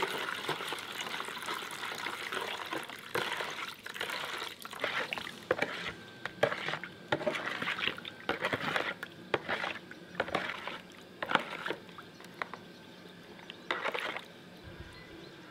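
Water pouring from a clay jug into a plastic bowl for the first few seconds. Then a spoon stirring the liquid, with irregular splashes and clicks against the bowl.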